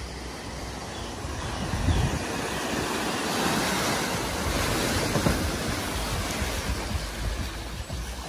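Water surging and splashing as a BMW 5 Series saloon ploughs through a flooded ford at speed, pushing a large bow wave. The rushing swells to its loudest in the middle and eases off near the end as the car leaves the water.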